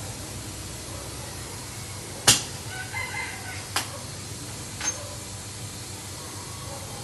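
Steady background hiss with three sharp clicks, the loudest about two seconds in and two weaker ones over the next few seconds, and a brief faint wavering call just after the first click.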